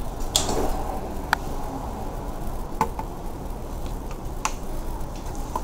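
A few scattered sharp clicks and taps over a low, steady background noise.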